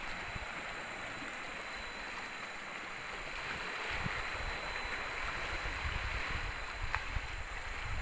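Steady rush of water lapping and flowing, with wind rumbling on the microphone from about halfway through and a faint steady high tone above it.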